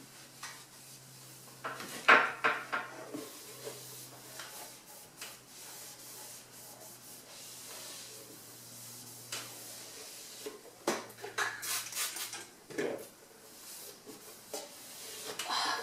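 A cloth wiping and rubbing the floor of a kitchen base cupboard, broken by sharp knocks and clinks against the cupboard and its wire spice racks, the loudest about two seconds in and a cluster around eleven to twelve seconds.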